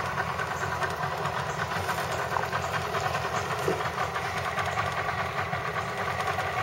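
Small boat's engine idling steadily with an even, fast pulsing rumble as the boat creeps slowly along.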